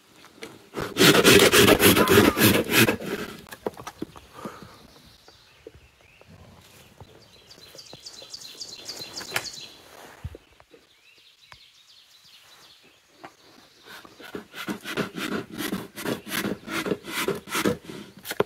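Black bear's claws scraping and rubbing against tree bark as it shifts in a tree fork, in loud, rapid, rough strokes about a second in and again in a longer run near the end, with quieter scrapes in between.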